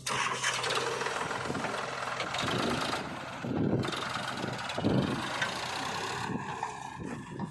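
Diesel engine of heavy farm or earthmoving machinery running, with irregular low surges in its sound.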